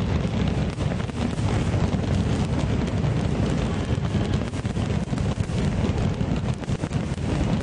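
A dense barrage of aerial firework shells bursting, the booms running together into a continuous low rumble with many short cracks on top.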